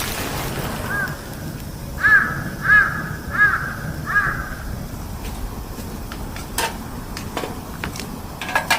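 A crow cawing five times in a short series, then a few sharp clicks near the end.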